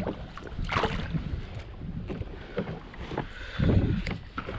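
A kayak on open water: small knocks and light splashes of the hull and gear, with a louder low rumble about three and a half seconds in.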